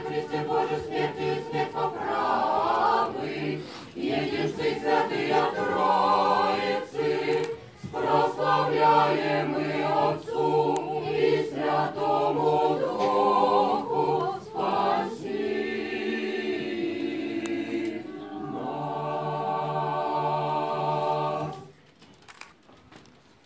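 Small church choir singing Orthodox chant a cappella, several voices moving over a low note held underneath. The singing closes on a long held final chord that stops about two seconds before the end.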